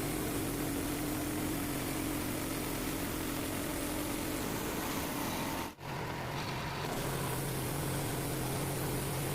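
Small gas engine of a Frontier portable bandsaw sawmill running steadily while the mill saws a white oak log. About six seconds in the sound drops out for an instant and comes back with a lower-pitched hum.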